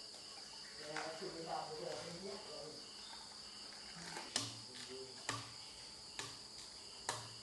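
Crickets chirring in a steady, high continuous trill. Faint voices come through in the first couple of seconds, and four sharp knocks sound about a second apart in the second half.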